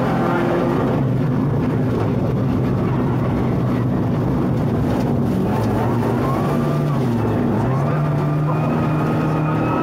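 Rally car engine running hard, heard from inside the cabin. Its note dips briefly about seven seconds in and then climbs again.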